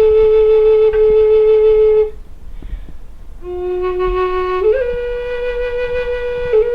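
Native American flute played in slow, long-held notes. One note is held, then there is a short breath pause about two seconds in. The next note starts lower, steps up about a second later and is held.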